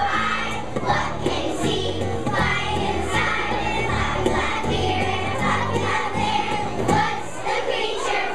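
A choir of young children singing together over a musical accompaniment with a stepping bass line.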